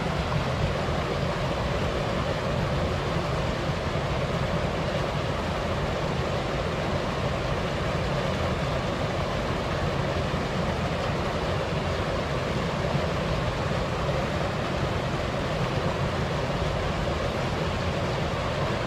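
Steady rushing ambience of wind and a waterfall, even in level with no distinct events.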